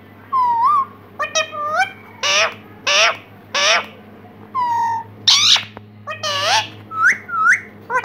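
Indian ringneck parrot calling: a run of about a dozen short calls, several of them rising in pitch.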